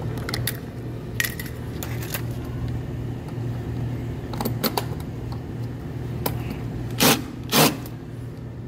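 Cordless drill backing a screw out of an aluminium door threshold: light metallic clicks and scrapes of the bit in the screw head, then two short bursts of the drill about seven seconds in. A steady low hum runs underneath.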